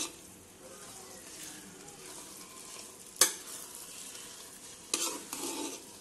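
Metal spoon stirring cracked-wheat lapsi in ghee in an aluminium pot, over a steady sizzle as the water cooks off. The spoon knocks sharply against the pot about three seconds in, and knocks and scrapes again near the end.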